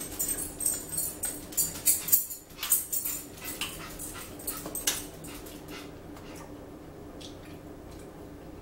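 Small pet dog whining and yipping in a quick run of short, high-pitched cries over the first five seconds or so, then stopping.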